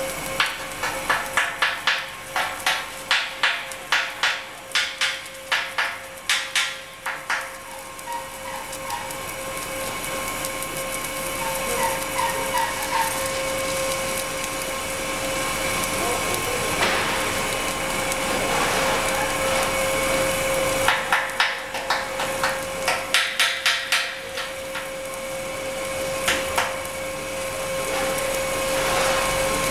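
Automatic pipe welding machine welding a steel lobster-tail elbow: a run of sharp clicks, two or three a second, then a steady welding-arc hiss that grows louder, then a second run of clicks near the end. A constant machine whine sounds under it all.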